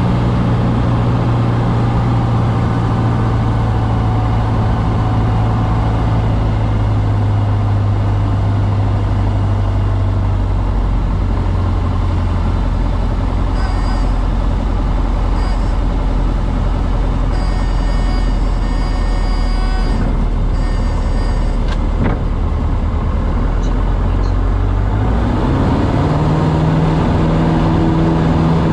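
Cessna 150's Continental O-200 four-cylinder engine and propeller running at low power, heard from the cockpit through approach, touchdown and rollout. The steady drone drops lower about ten seconds in, a thin high whistle comes and goes in the middle, and near the end the engine note rises again.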